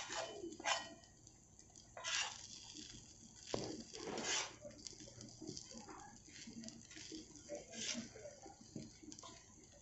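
Spatula stirring and scraping egg pulao rice on a tawa griddle: faint, irregular strokes a second or two apart.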